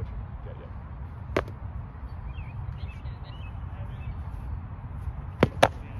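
Foam-padded sparring swords smacking on contact: one sharp hit about a second and a half in, then two quick hits close together near the end. Faint bird chirps and a steady low rumble run underneath.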